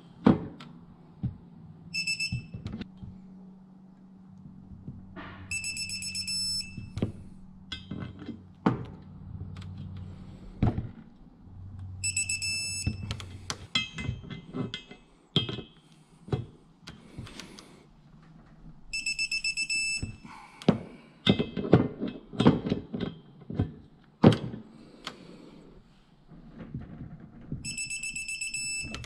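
Electronic torque wrench beeping in short, rapidly pulsed high-pitched bursts, five times, each signalling that the set torque has been reached on a connecting-rod bolt being tightened in stages to 60 ft-lb. Ratchet clicks and metal knocks come between the beeps.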